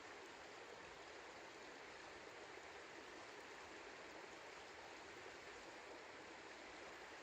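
Faint, steady rushing of a river flowing.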